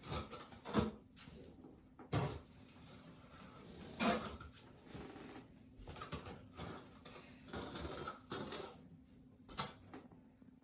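Trowel spreading and scraping thinset cement over an under-tile heating mat, with irregular rasping strokes and several sharp knocks of the trowel against the floor and bucket.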